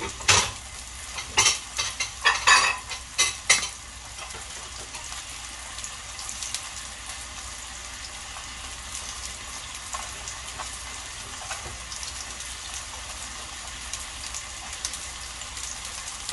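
Beef steaks and vegetables sizzling in a nonstick grill pan, with a run of sharp pops and crackles in the first few seconds that then settles to a steady high sizzle with only an occasional pop.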